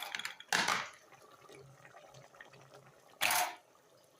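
Water splashing in two short bursts about three seconds apart, with faint small clicks and knocks between them.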